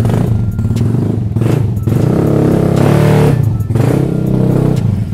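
Automatic Vespa scooter's single-cylinder four-stroke engine with a racing exhaust, just started, idling and revved with the throttle, the strongest rev building about two seconds in and dropping back near the end. The exhaust note is loud and aggressive.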